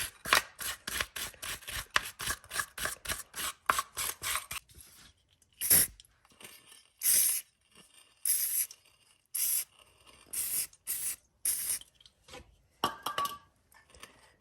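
Wire brush scrubbing a recoil starter part with quick back-and-forth strokes, about five a second. After about four and a half seconds it changes to slower, longer single strokes, roughly one a second.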